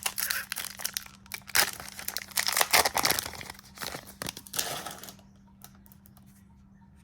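Plastic wrapper of a basketball trading card pack being torn open and crinkled, in irregular bursts, stopping about five seconds in.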